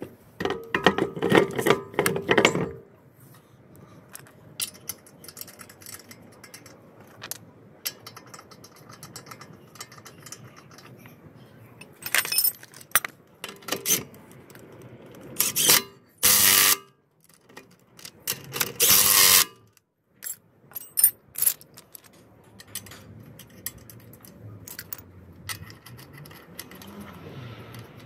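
Clatter and metallic clinking as a car wheel is hung on the hub and its lug nuts are handled. Partway through, a cordless power wrench runs in about five short bursts, spinning the lug nuts on.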